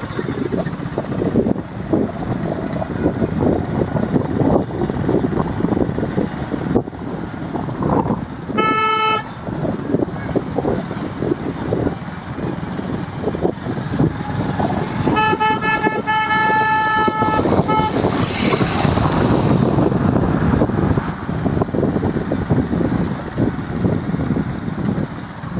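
Road and wind noise from riding a motorbike, with a vehicle horn sounding twice: a short toot about nine seconds in and a longer honk of about two and a half seconds around sixteen seconds in.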